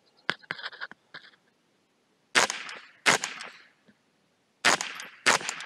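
Ruger 10/22 .22 LR rifle firing four shots in two pairs, each a sharp crack with a short echo trailing off. A few light clicks and knocks come in the first second.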